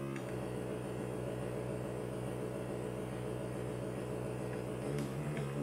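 Analog synthesizer sounding a steady low drone, a stack of held tones with a grainy, noisy texture over them; the tones shift near the end.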